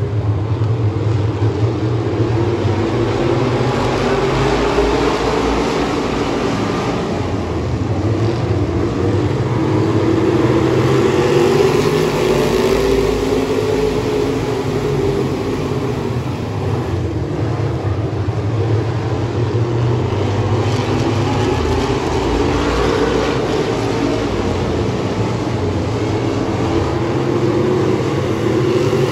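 A pack of pure stock dirt-track race cars running around the oval, many engines at once, their pitch rising and falling as the cars power down the straights and lift for the turns.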